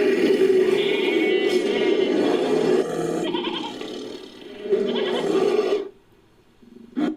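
Designed creature call built from layered goat and sheep bleats, quavering and thick. It runs as two long calls, breaks off into a pause about six seconds in, and ends with one short call.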